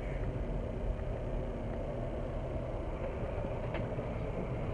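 Jeep's engine and tyres on a dirt track, heard from inside the cabin while driving: a steady low rumble.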